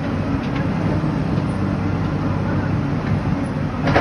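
Hyundai excavator's diesel engine running at a steady speed, with a single sharp knock near the end.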